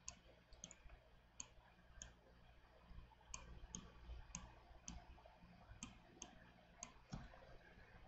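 Faint, irregular clicks of a computer mouse button, about a dozen.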